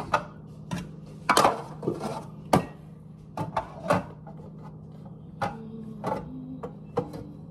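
Irregular plastic clicks and knocks from handling a K-cup coffee maker as the lid of its water reservoir is put back on, with two louder knocks in the first three seconds. A low steady hum runs underneath.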